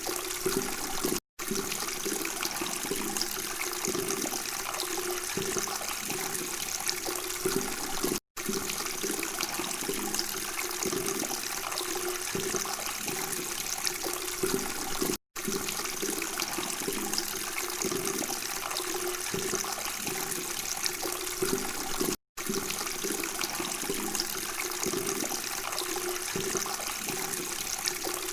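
Steady babbling of running water, cutting to silence for an instant four times, about every seven seconds.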